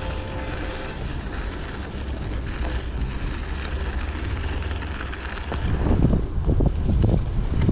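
Wind buffeting the microphone of a bicycle-mounted camera while riding, a steady low rushing that turns into stronger, uneven gusts about three quarters of the way through.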